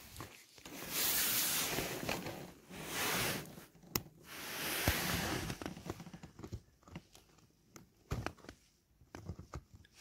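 Rustling handling noise in bursts with a few sharp clicks, from a hand working small plastic rocker switches on a car's center console.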